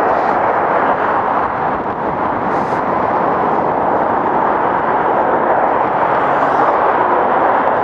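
Steady, loud rush of wind across the microphone while riding an electric unicycle at speed, mixed with traffic noise from the highway alongside.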